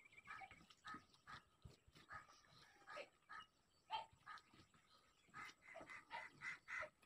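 A dog whimpering and yipping in a series of short high cries, coming faster near the end.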